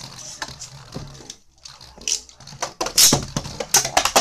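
Beyblade Burst spinning tops in a plastic stadium: a steady low whir from the spinning top, then sharp clacks from about three seconds in as a second top joins and they strike each other and the stadium wall.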